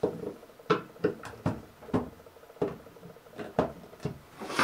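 Screwdriver undoing the plastic locking tabs on a solar bilge pump's cover: a series of about ten short, sharp clicks, roughly two a second.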